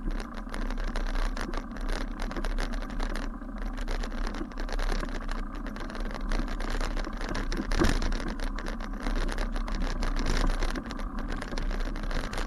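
Bicycle ridden over a rough grassy path, heard from a camera mounted on the bike: a steady rumble of tyre and wind noise with frequent small knocks and rattles from the bumps.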